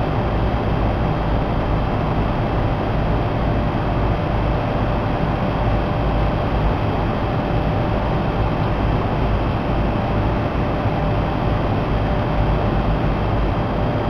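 HVAC blower running steadily, pushing a loud, even rush of air through a pleated air filter, with a faint steady hum under it.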